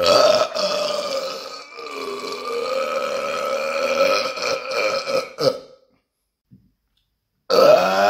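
A man's long, pitched burp lasting about five and a half seconds, with a brief dip near two seconds in. After a short silence, another burp starts near the end.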